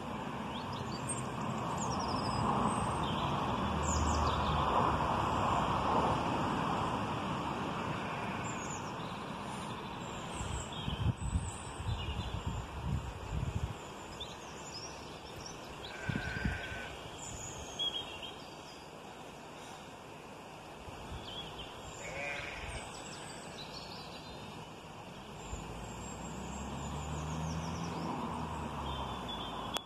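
Birds singing, with many short chirps and a sheep bleating now and then, over a steady background noise. Near the end a vehicle passes with a low hum that rises and falls.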